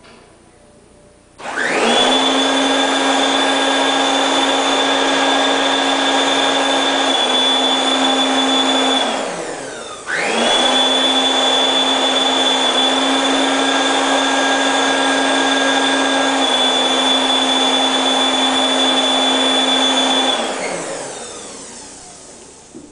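Electric blower motor blowing air into a long plastic tube, running with a steady high whine over a low hum. It spins up about a second and a half in, slows briefly just before ten seconds and starts again, then winds down with falling pitch near the end.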